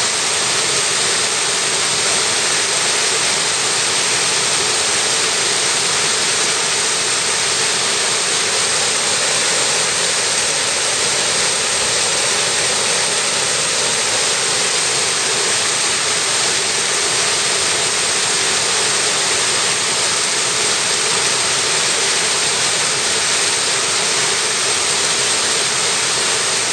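Mountain stream rushing over boulders and small cascades: a steady, loud rush of white water.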